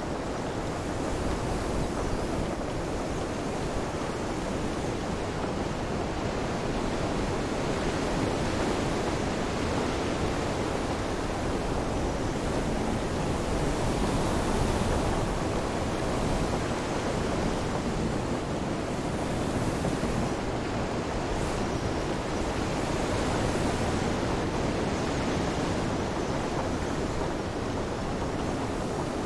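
Stormy sea ambience: a steady rush of wind, rain and waves, swelling slightly now and then.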